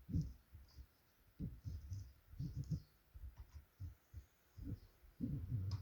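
Utility knife cutting into coffee packaging, heard as a run of irregular dull thumps with faint scraping from the blade.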